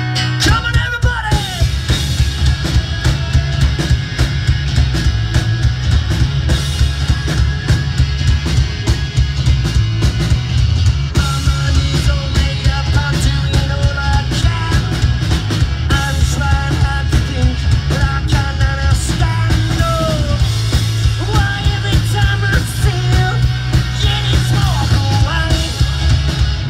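Live rock band playing a fast, loud song: a pounding drum kit, guitars and bass, with singing over them.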